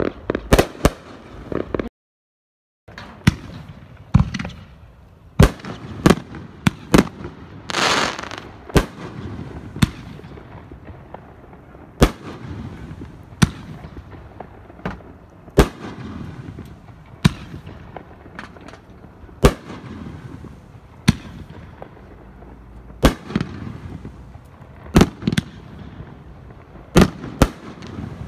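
Pyroland White Knight, a 10-shot 500 g consumer fireworks cake, firing: a string of sharp launch thumps and aerial breaks at irregular intervals, with a hissing spray after some bursts. About two seconds in, the previous cake's last shots cut off in a brief dead silence.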